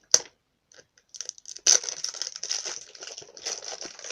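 Plastic doll packaging crinkling and rustling as it is pulled open by hand. There is a sharp snap just after the start, then from about a second and a half in a continuous, irregular crinkling.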